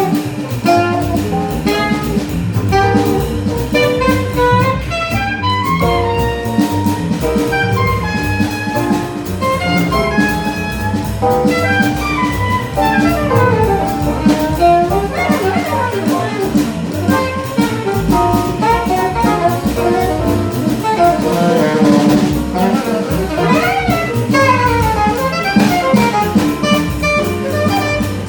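Live bebop jazz by a small band: a saxophone plays fast runs of notes that rise and fall over a drum kit and rhythm section.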